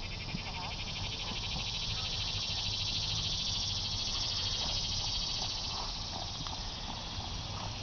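A steady, high-pitched, rapidly pulsing chorus of insects, swelling a little in the middle, over a low rumble.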